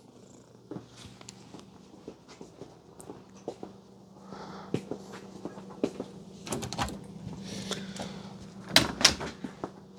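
A door opening and closing, with scattered knocks and clicks of someone moving about. The loudest knocks come about nine seconds in, over a steady low hum.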